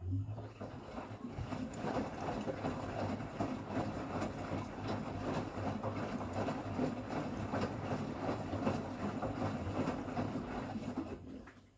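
Beko bPRO500 washing machine tumbling its wash: the motor turns the drum for about eleven seconds while the water inside sloshes and splashes, then the drum stops. This is a wash tumble during the machine's first calibration cycle.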